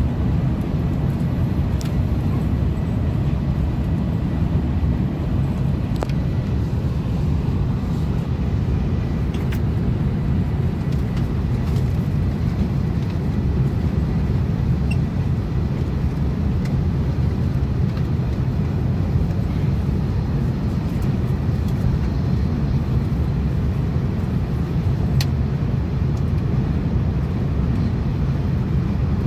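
Steady low rumble of a TGV high-speed train running at speed, heard from inside the passenger carriage, with a few faint clicks.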